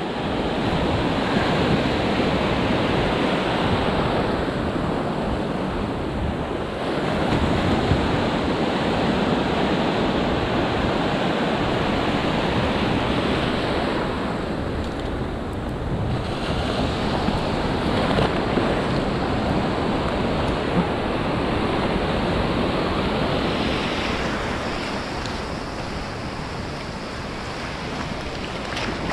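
Ocean surf breaking and foam washing up a sandy beach; the rushing swells and eases several times as the waves come in.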